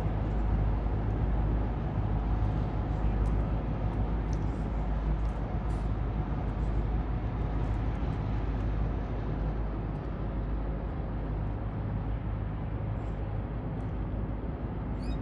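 Tugboat's diesel engine running as it moves off down the river: a steady low rumble with a faint hum above it, slowly fading as the boat draws away.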